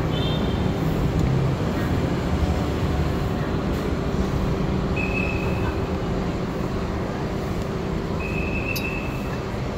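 Tour bus running, a steady engine hum and road noise heard from on board amid city traffic. Two short high beeps sound about five and eight seconds in.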